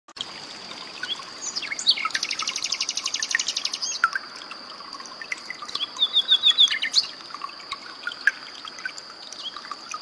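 Common nightingale singing: a fast rattling trill of about ten notes a second from around two to four seconds in, then a short run of clear repeated notes around six seconds in. Trickling water and a steady high-pitched tone run underneath.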